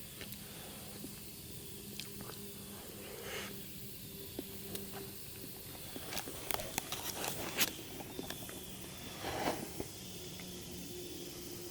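Campfire on a bed of coals, hissing steadily with scattered sharp crackles that bunch together about six to eight seconds in.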